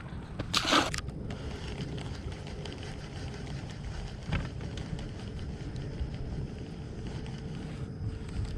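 Steady low rumble of wind and water around a small fishing boat, with a short hissy burst of noise just under a second in and a single light knock about four seconds in.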